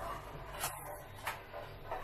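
A few short light knocks and scrapes of a spatula and a perforated metal steamer tray against a stainless steel pan, about three, a little over half a second apart.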